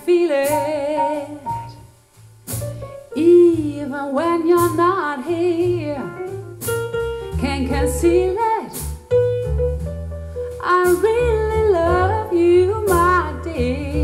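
A slow song with piano, bass and a melody line sung or played with vibrato, playing through a pair of JBL Studio 280 three-way floorstanding loudspeakers and picked up in the room.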